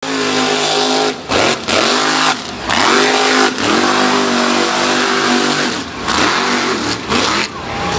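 Mega truck's engine revving hard at high rpm through a mud bog pit. Several times its pitch drops sharply and climbs back as the throttle is lifted and reapplied.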